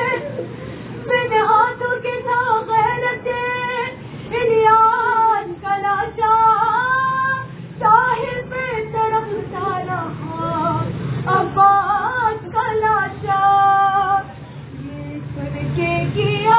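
A woman's voice singing a noha, a mournful Shia lament, in long held and bending phrases with short breaks between lines.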